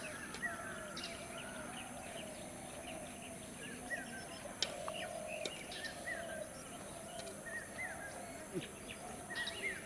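Birds chirping: short calls follow one another every second or so over a faint steady background hiss.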